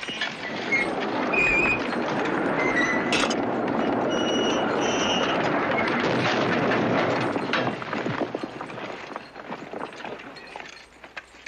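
A loaded ore cart running away down a mine rail track: a steady rolling rumble and clatter of wheels on the rails with a few short squeals, fading out after about eight seconds.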